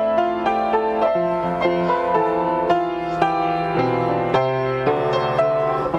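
Piano playing a slow, gentle melody over chords, with a new bass note every second or so.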